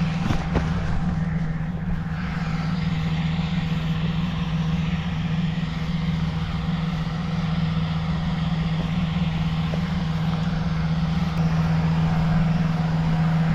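Hot air balloon inflation fan's engine running steadily, a constant motor hum that grows a little louder near the end.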